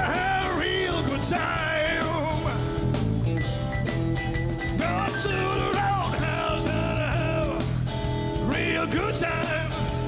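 Rock band playing live: a man sings lead in phrases over electric guitar, bass guitar and keyboard.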